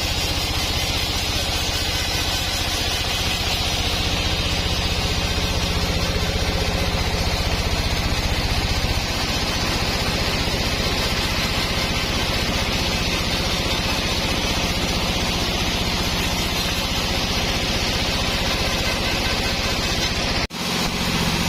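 Sawmill machinery running steadily, a low engine-like hum under a wide hiss. The low hum eases off partway through, and near the end the sound cuts out for a moment before a slightly different machine noise starts.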